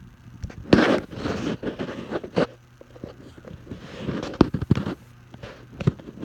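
Handling noise: rustling and scraping with several sharp knocks, over a steady low hum from the house's central air conditioner running.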